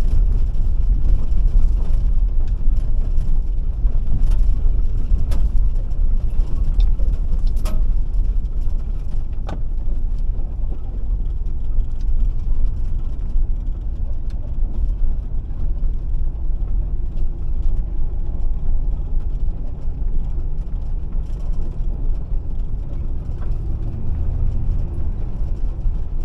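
A car driving slowly, its engine and tyres making a steady low rumble, with a few light clicks or rattles.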